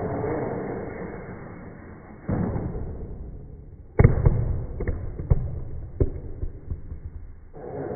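Slowed-down sound of a radio-controlled toy Formula 1 car's motor running, deep like a full-size engine, fading and then swelling again. About four seconds in, the car strikes small plastic e-liquid bottles, which knock and clatter on the laminate floor several times, the first hit the loudest. The motor sound comes back near the end.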